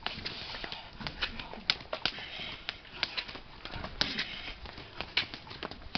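Bare forearms striking against each other in turn, a series of sharp smacks with the louder ones coming a second or two apart, among smaller clicks.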